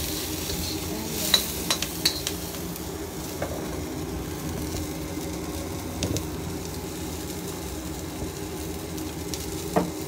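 Diced ingredients sizzling as they are sautéed in a wok, the sauté stage of a mung bean stew. A metal spatula stirs and clicks against the pan several times in the first couple of seconds, with single clicks later on.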